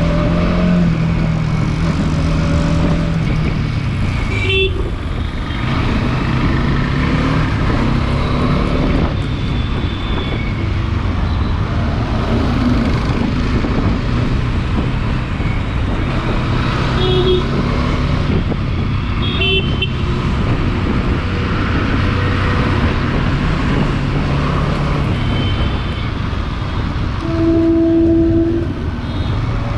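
Riding a Bajaj Dominar 400 motorcycle in traffic: its single-cylinder engine runs with changing revs under steady wind and road noise. Short vehicle horn toots come a few times, and a longer, lower horn sounds for about a second near the end.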